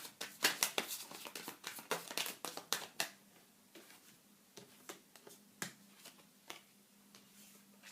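Tarot cards being shuffled by hand: a quick run of card snaps and flicks for about three seconds, then a few scattered single soft taps as cards are handled and laid down.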